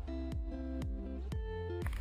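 Background music: an instrumental stretch of a pop song with held notes, a steady beat about twice a second and deep bass hits that drop in pitch.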